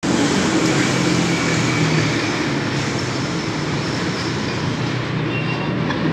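Loud, steady rumble of a passing elevated light-rail train, with a low hum underneath.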